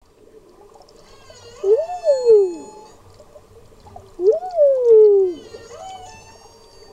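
Humpback whale song heard underwater: two loud, similar calls about two and a half seconds apart. Each rises quickly in pitch and then slides down in a long falling sweep, the second a little longer than the first.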